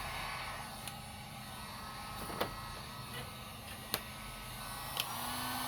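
Harbor Freight Warrior heat gun blowing steadily while it heats heat-shrink tubing on spliced wiring, with a few sharp clicks; a low steady hum comes in near the end.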